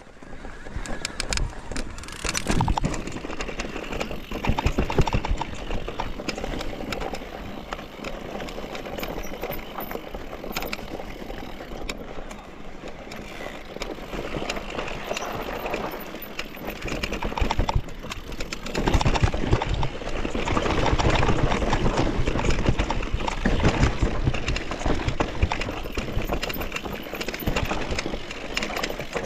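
Mountain bike riding a dirt trail: tyres rolling over dirt and stones with the bike rattling in many small clicks, and a rumbling noise that grows louder in the second half.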